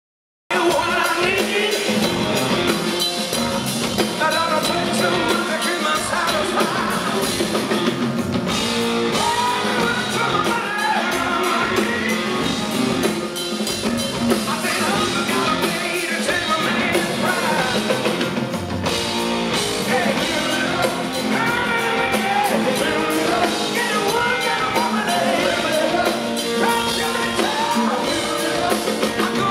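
A rock band playing live, heard from the crowd: a man singing over electric guitar and drums. The music cuts in abruptly about half a second in and stays loud.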